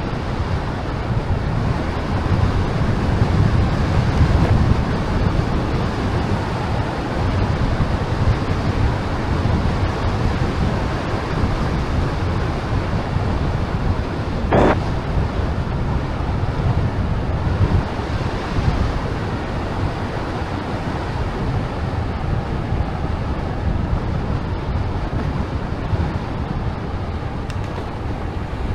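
Steady wind rushing and buffeting over the microphone of a bicycle rider's camera while riding, heaviest in the low end. One brief sharp click about halfway through.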